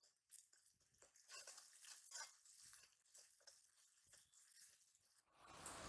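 Faint scraping and clicking of a metal spatula stirring bitter gourd frying in a wok, with a light high hiss. Near the end a louder steady rushing noise sets in.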